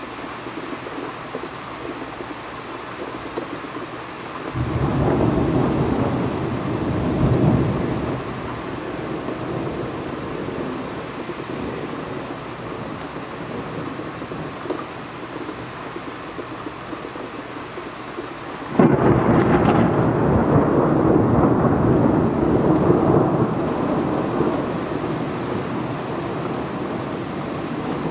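Steady rain with two rolls of thunder: a rumble building about four seconds in and lasting a few seconds, then a sudden clap about nineteen seconds in that rolls on for several seconds before fading back into the rain.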